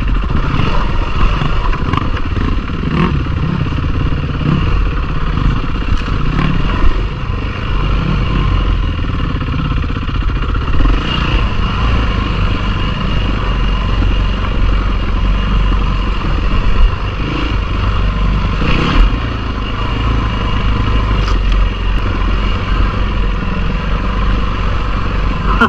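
Single-cylinder four-stroke Yamaha WR dirt bike running on a rough trail, its engine note rising and falling with the throttle. A few sharp knocks and clatter from the bike over rough ground, the loudest about 7, 17 and 19 seconds in.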